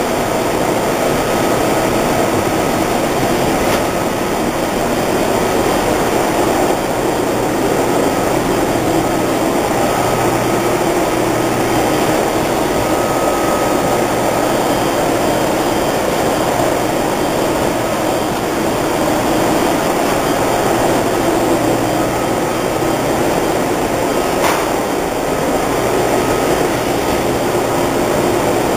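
Six-colour rotary screen printing press running: a loud, steady mechanical whir of motors and air, with a short click twice.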